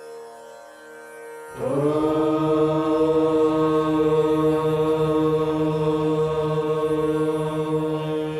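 Devotional prayer music. A soft steady drone plays, then about one and a half seconds in a loud held note with many overtones comes in, bends briefly up in pitch and stays steady.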